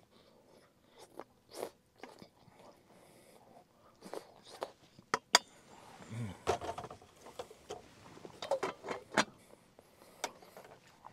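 Someone eating hot soup: scattered spoon clicks and scrapes against the bowl, with sips and chewing. The loudest sound is a sharp click about five seconds in, followed by a brief low murmur.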